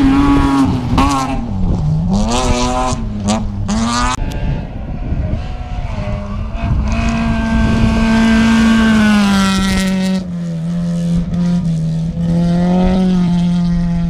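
Rally car engines at high revs on a gravel stage. For the first four seconds one engine revs rapidly up and down through gear changes, with sharp cracks. Then an engine holds a high, steady note that drops in pitch about ten seconds in.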